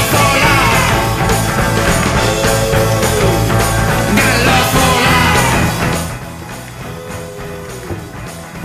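Background rock music with a steady beat, dropping noticeably in volume about six seconds in.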